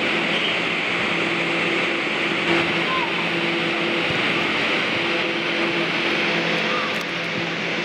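Steady drone of the air-supported football hall's blower fans: an even hiss with a low hum of a few steady tones. A single thud comes about two and a half seconds in, with faint shouts from players.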